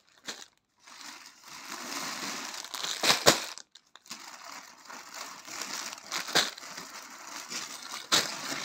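Clear plastic saree covers crinkling and rustling as packed sarees are handled and dropped onto a pile, with a few sharper crackles of the plastic about 3, 6½ and 8 seconds in.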